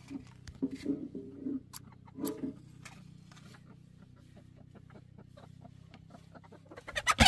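Hens clucking close by, with a match scratched on its box about two seconds in. Near the end comes a loud burst of cackling.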